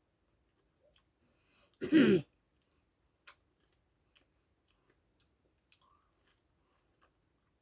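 Faint scattered clicks and crunches of hand-cooked crisps being chewed, broken about two seconds in by one loud, short throat noise from the eater, lasting about half a second.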